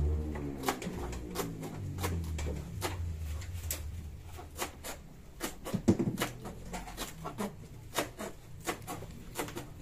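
Kitchen knife chopping green herbs on a plastic cutting board: a run of sharp taps at an uneven pace, with a louder flurry of chops about six seconds in.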